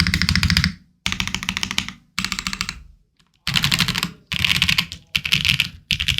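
Mode Sonnet mechanical keyboard being typed on quickly, in runs of rapid keystrokes about a second long with short pauses between them. It has lubed Opblack switches in a POM plate and PBTfans keycaps, a sound the owner calls a little plasticky.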